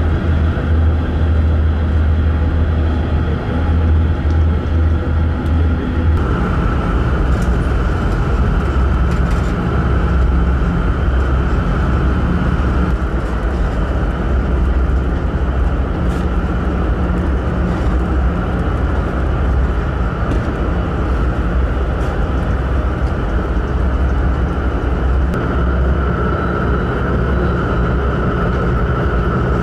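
Osprey 2000 ferry's engines running underway: a steady low drone with a fainter steady whine above it. The sound changes abruptly about six seconds in.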